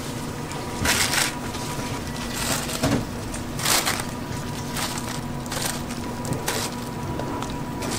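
A series of short, crisp crunching noises, about one a second, the loudest about a second in and just before the middle, over a steady background hum.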